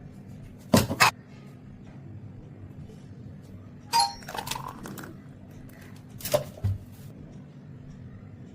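Kitchenware knocking and clinking: a quick pair of knocks about a second in, a ringing clink like glass or metal struck about four seconds in, and two more knocks near the end, over a low steady hum.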